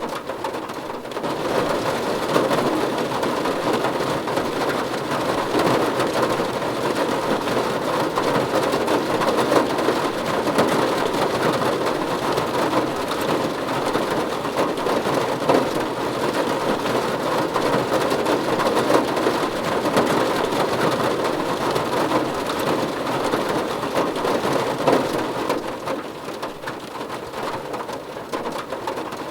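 Heavy rain falling on a car's roof and windows, heard from inside the cabin: a dense, steady patter that swells about a second in and eases slightly near the end.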